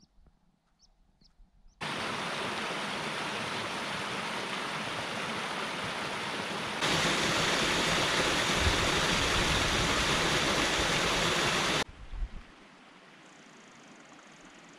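Small waterfall on a rocky mountain stream, a steady rush of falling water that cuts in suddenly about two seconds in and gets louder midway. It drops off abruptly near the end to a faint steady hiss.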